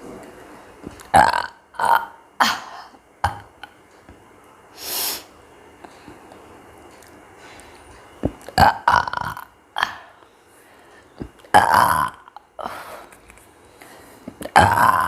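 A woman burping repeatedly: short, loud burps come in quick clusters of two or three, with pauses of a few seconds between the groups.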